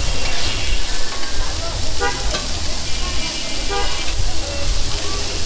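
Chicken chaap frying in hot oil, sizzling steadily, with a metal spatula stirring and scraping in the pan.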